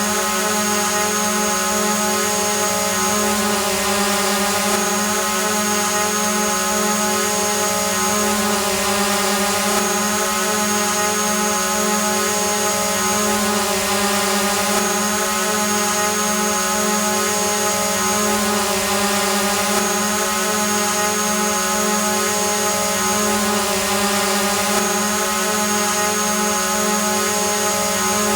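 Drone hovering: the steady, even-pitched hum and buzz of its spinning propellers. A thin high whine drops in and out every few seconds.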